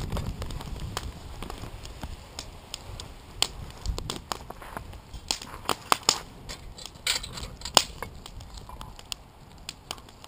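Scattered sharp clicks and crackles: a wood fire crackling in a fire pit, with long metal tongs and a lid lifter clinking against a cast iron Dutch oven and its charcoal-topped lid.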